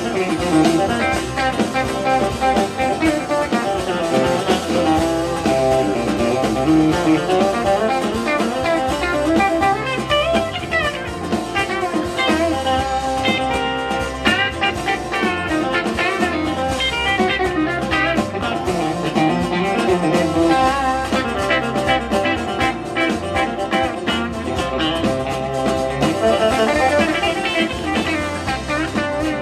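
Live country band playing an instrumental passage without singing: electric guitar and strummed acoustic guitar over a drum kit, with the guitar lines bending in pitch.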